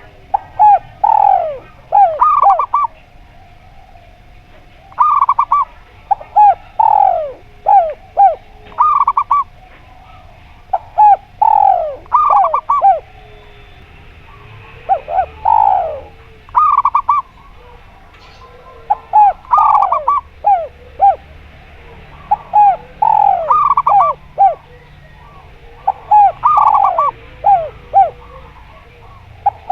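Zebra doves and spotted doves cooing: phrases of quick, clipped coos repeated every second or two, sometimes overlapping.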